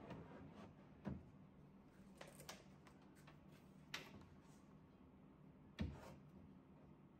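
A few soft knocks and clicks as toys are put into a white toy-storage shelf's compartment and knock against its panel and floor: a low thump about a second in, lighter clicks in the middle, and the loudest thump near the end, in an otherwise quiet room.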